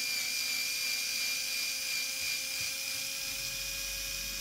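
Cocraft cordless screwdriver motor running at a steady high-pitched whine while it unscrews the brake pin from a plastic stroller wheel housing.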